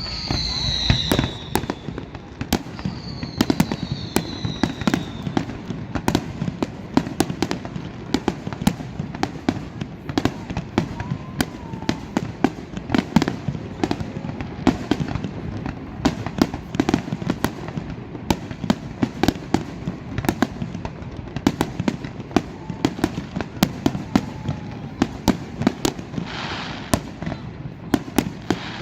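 Fireworks display: a dense, steady barrage of bangs and pops, several a second. In the first few seconds a few whistles fall in pitch, and near the end there is a spell of hissing crackle.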